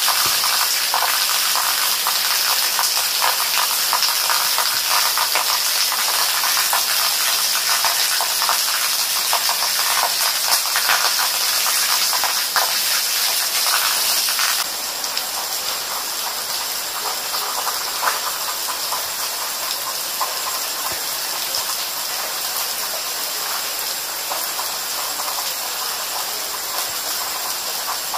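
Steady rain falling on leafy plants: an even hiss with a dense patter of drops hitting leaves. A little over halfway through, the sound steps down slightly quieter and stays level.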